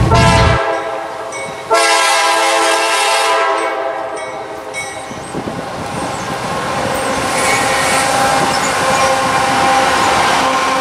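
Freight locomotive horn sounding two blasts, a short one and then a longer one ending about five seconds in, followed by the train rumbling past with wheels clattering over the rail joints.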